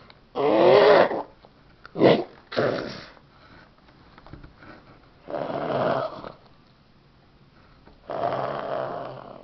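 A small dog play-growling and snorting in about five rasping bursts while it bites and tugs at a plush toy, with quieter gaps between.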